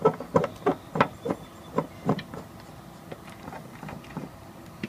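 Light clicks and taps, about three a second and fading after two seconds, from the leveling screws of an Eppley 8-48 pyranometer being turned down by hand.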